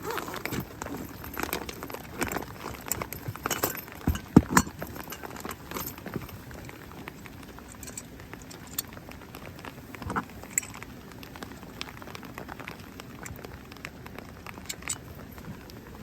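Rain patter with many scattered clicks and knocks, thickest and loudest in the first few seconds and thinning out after that.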